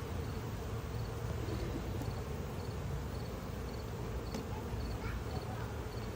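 Honey bees humming steadily around an opened hive, with a cricket chirping in short three-pulse chirps that repeat evenly, a little under twice a second.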